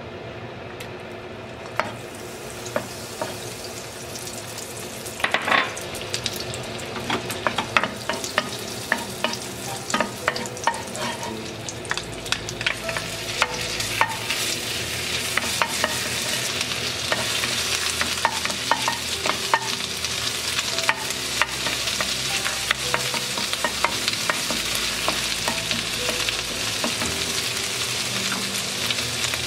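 Butter sizzling in a hot nonstick wok, the sizzle building and getting louder as the butter melts and foams. Frequent light taps and scrapes of a wooden spatula stirring against the pan.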